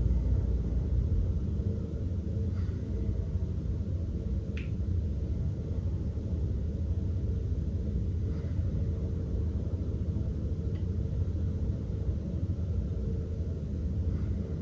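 Steady low rumble of room background noise, with a few faint soft clicks scattered through it.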